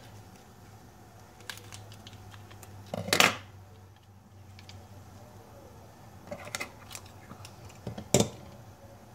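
Scissors snipping open a small soy sauce packet, among scattered clicks and knocks of handling. The loudest are a short knock about three seconds in and a sharp knock about eight seconds in, over a low steady hum.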